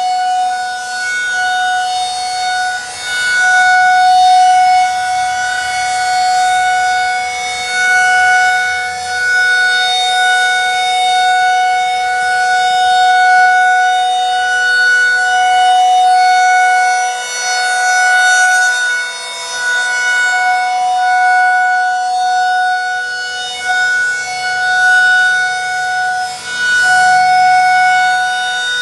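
Federal Signal 2001-SRN dual-tone rotating outdoor warning siren sounding its full alert: a steady two-note chord that swells and fades every few seconds as the badly wobbling head turns.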